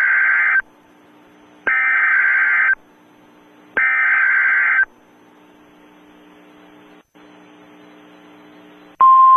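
Three telephone-like electronic beeps, each about a second long and about two seconds apart, then a low hiss. Near the end a steady, lower-pitched beep starts and holds.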